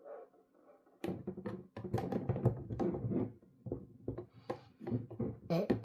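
Irregular knocks, taps and scrapes of a Topping DAC/amp unit being handled and pushed into a shelf of an acrylic and aluminium desktop rack, starting about a second in.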